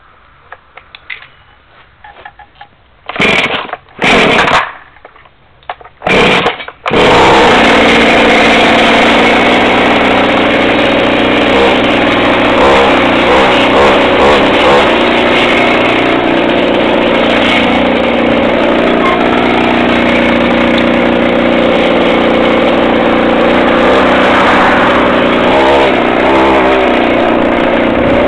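Homemade chainsaw-engined bike's two-stroke engine starting: three short bursts of firing that die away, then it catches about seven seconds in and keeps running loudly, its speed rising and falling slightly.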